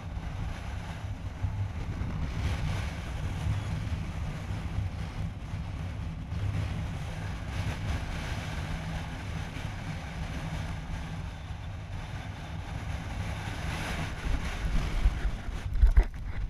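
Motorcycle running along a dirt road with wind rushing over the microphone. Near the end there are a few loud low thumps.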